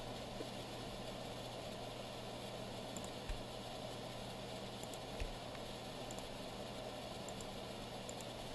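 Steady low hum and background noise with a few faint short clicks and soft knocks.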